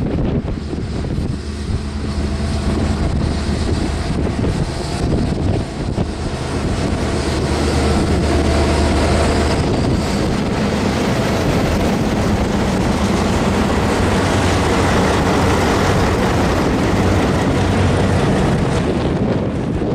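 Diesel locomotives, an ALCo RSD16 and an EMD G12W, rolling past at close range, their engines running with a steady low drone that grows louder about halfway through as they draw level. Wind buffets the microphone.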